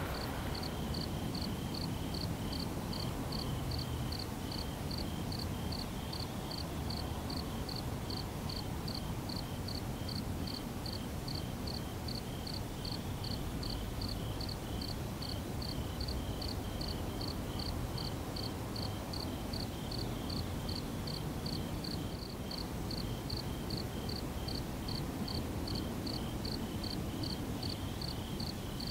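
An insect chirping steadily, a high-pitched chirp repeated evenly about twice a second, over a low steady background noise.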